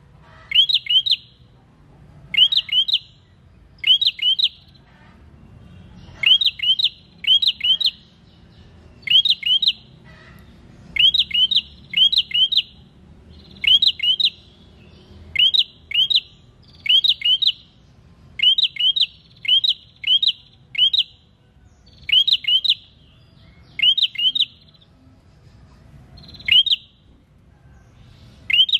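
A prenjak (prinia) calling: quick groups of two or three sharp, high chirping notes, repeated about once a second with short pauses.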